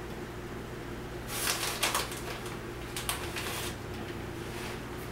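Soft rustling and scraping in two short bursts, about a second in and again about three seconds in, as shredded cheddar cheese is added to the casserole mixture. A faint steady hum runs underneath.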